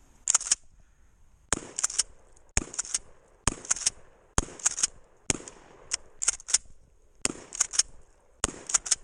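Kel-Tec KSG pump-action 12-gauge shotgun fired shot after shot, roughly a second apart, with the clack of the pump being racked hard between shots.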